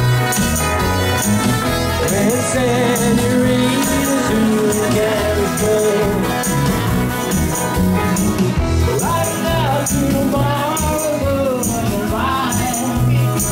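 A live rock band playing in a small room: electric guitars, bass guitar, drum kit and keyboard, with a wavering lead melody line. High hand percussion rattles in a steady rhythm over the band.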